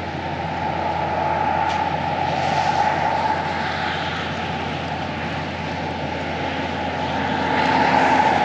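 Vehicle engine idling steadily, heard from inside the cab, with a rushing noise that swells about two and a half seconds in and again near the end.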